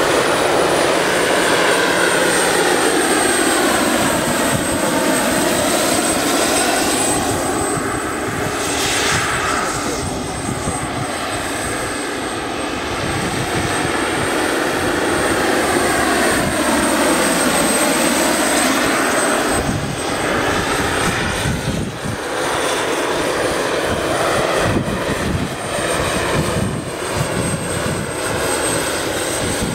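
Pahl Taurus two-stage turbine of a large scale RC Mi-24 helicopter running in flight, a steady high turbine whine over the drone of its five-blade rotor. The tone sweeps down and back up twice as the helicopter passes, and turns uneven and fluttering in the last third.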